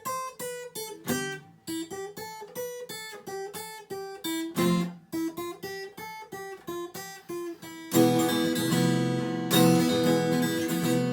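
Acoustic guitar playing single picked notes. About eight seconds in it turns to louder, fuller strummed chords.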